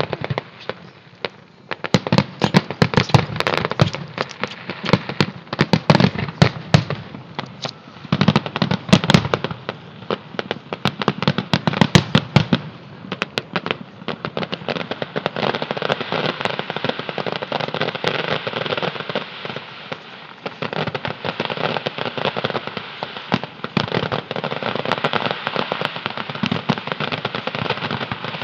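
Fireworks display: a rapid barrage of bangs, then from about halfway a dense, continuous crackling.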